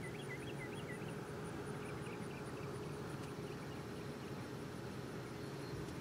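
Insects singing in the summer grass: a steady, high-pitched pulsing, about four to five pulses a second, with a few short chirps in the first second and again around two seconds in.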